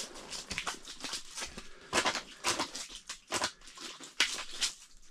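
Irregular scuffs, rustles and soft knocks of handling on the ice, with no steady rhythm.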